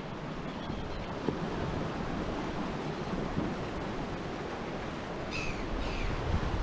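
Ocean surf washing on the shore, with wind buffeting the microphone. Two short high chirps sound near the end.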